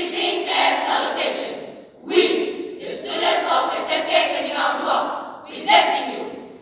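A school choral speaking team's many voices reciting together in unison, in three phrases with short breaks, the middle one the longest.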